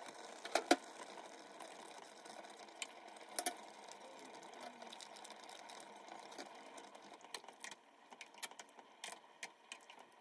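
Cooking clatter at a pot on the stove: two sharp knocks under a second in as a block of tofu is slid off a wooden cutting board into the pot, then scattered light clicks and taps of a metal spoon against the pot as sauce is spooned in and the soup is stirred, over a faint steady hiss.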